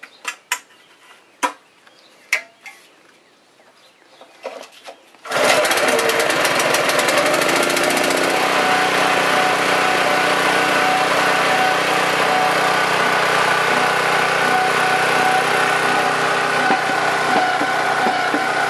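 A few sharp clicks, then about five seconds in the small Honda gasoline engine of a 3-inch diaphragm pump starts suddenly and runs steadily.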